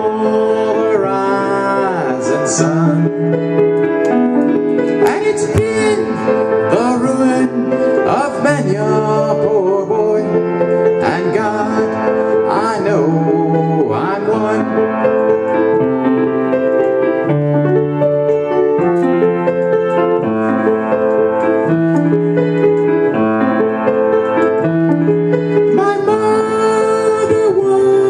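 Grand piano playing a steady chord accompaniment, the chords changing at an even pace, with a man singing over it in phrases broken by short gaps.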